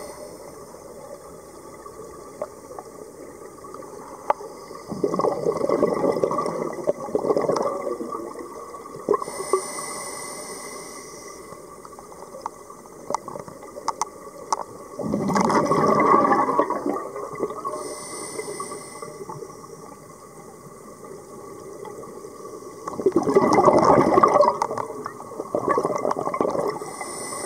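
A scuba diver breathing through an open-circuit regulator underwater. There are three bursts of exhaled bubbles, each a couple of seconds long, with a short hiss of inhalation between them, about every eight or nine seconds.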